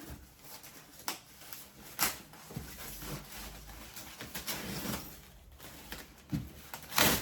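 Handling noises from unpacking an inflatable paddle board: rustling with a few short knocks, the loudest near the end.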